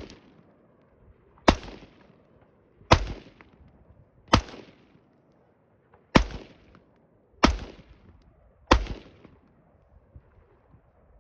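AR-15 rifle firing six single shots in steady, unhurried succession, about one every second and a half, each with a short echoing tail; the shots stop a little before the end.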